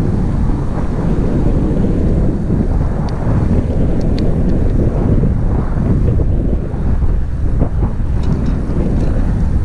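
Wind buffeting the microphone of a camera on a moving bicycle: a loud, steady low rush of noise.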